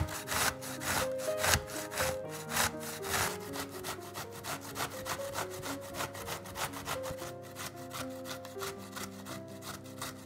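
A zucchini being grated on a stainless-steel box grater: quick rasping strokes, about three a second, strongest in the first few seconds and lighter toward the end. Soft piano background music plays underneath.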